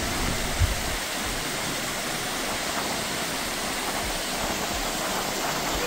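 Waterfall: water rushing down the falls in a steady, even roar of noise.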